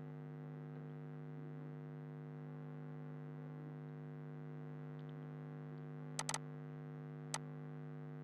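Steady low electrical mains hum from the recording setup, with a quick double or triple click a little after six seconds in and a single click about a second later, like computer mouse clicks.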